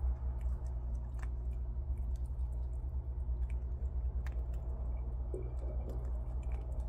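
Prairie dogs chewing and crunching on nuts, with small sharp crunches scattered throughout and a busier patch of crunching near the end. A steady low hum runs underneath.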